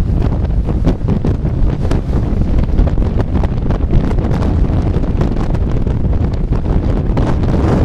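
Storm-force wind buffeting the microphone, a loud, steady low rumble with constant gusting crackle.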